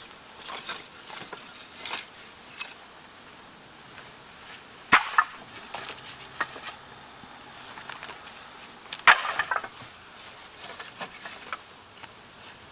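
Sticks and branches being handled and broken: scattered small cracks and knocks, with two loud sharp cracks about five and nine seconds in.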